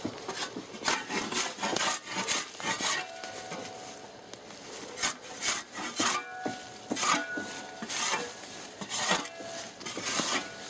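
Bark being scraped off a felled log with a cut-down spade: a rapid, irregular series of scraping strokes of the blade on the wood, about two a second, easing off briefly around four seconds in.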